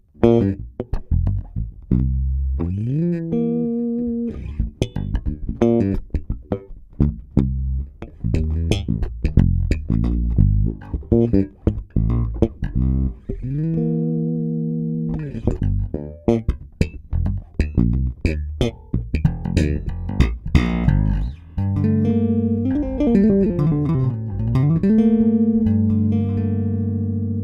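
Electric bass guitar played through a Darkglass Hyperluminal compressor pedal in its FET (1176-style) mode. A run of sharp, percussive plucked notes mixed with held notes, with climbing runs and, near the end, a slide down and back up the neck.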